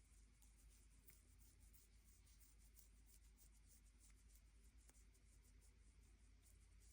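Faint, irregular scratching of fingertips rubbing through a green-cheeked conure's head feathers, barely above near silence.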